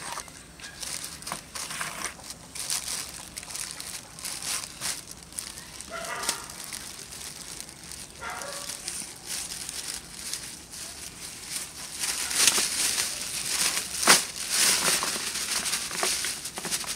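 Thin plastic carrier bag crinkling and rustling in irregular handfuls as vegetables are pulled out of it. It gets louder and busier in the last few seconds.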